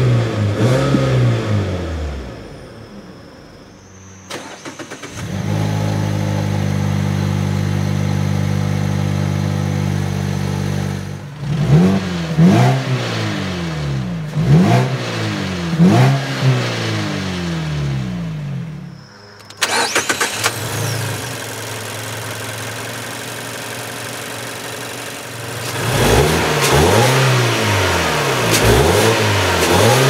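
2014 Mazda3 i's 2.0-litre Skyactiv four-cylinder engine idling and being free-revved: a few revs, a steady idle, four quick throttle blips a second or two apart, more steady idling, then a run of revs near the end.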